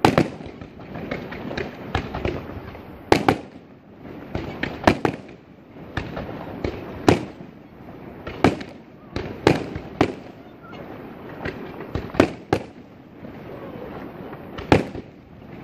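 Fireworks display: aerial shells bursting in an irregular run of sharp bangs, about one or two a second, each trailing off in a short echo.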